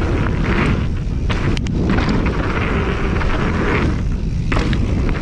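Wind rumbling on the camera microphone and tyres rolling over a dirt trail as a mountain bike rides downhill, with a sharp click about a second and a half in.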